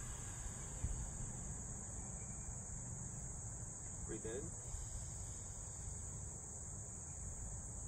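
A steady, high-pitched chorus of insects, droning without a break, with a low rumble beneath.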